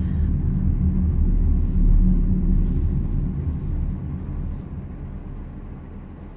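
Low, heavy rumbling drone that fades away over the second half. Faint high chirps of birds or insects come through as it dies down.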